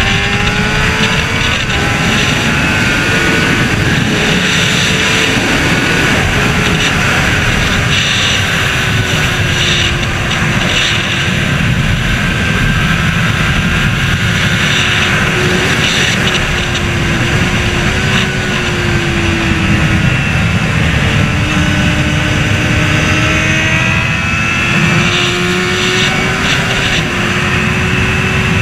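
Honda CBR600RR's inline-four engine running at sustained road speed, its note holding fairly steady and dipping and rising slightly with the throttle, under heavy wind noise on the microphone.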